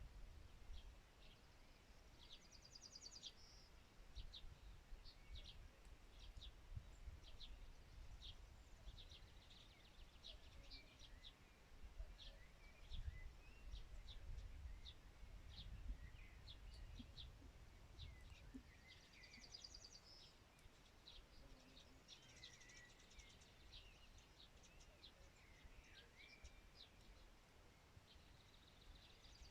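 Faint birdsong: many short, quick chirps through the whole stretch, with a few brief rapid trills about 3, 20, 22 and 29 seconds in, over a low rumble.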